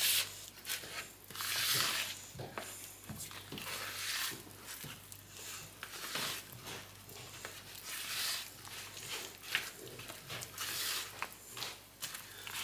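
Silicone spatula folding thick brownie batter in a mixing bowl: irregular soft scraping strokes against the bowl and through the batter.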